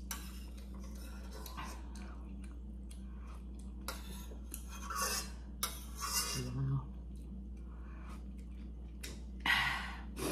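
Metal ladle clinking and scraping against a stainless steel pot of broth in scattered light strokes, with a louder clink about nine and a half seconds in.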